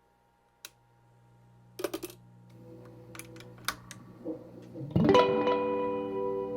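Electric guitar played through a freshly restored Echoplex EP-2 tube tape delay on its first test: a click, a steady hum that grows louder, a few soft picked notes, then a loud strummed chord about five seconds in that rings on.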